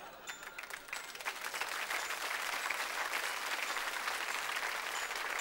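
Studio audience applauding: the clapping builds over the first couple of seconds, then holds steady.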